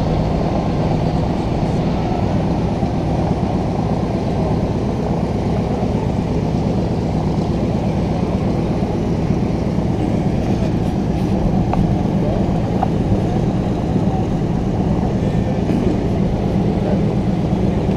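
Douglas C-47's twin Pratt & Whitney R-1830 radial engines running steadily at low power, a loud, even drone.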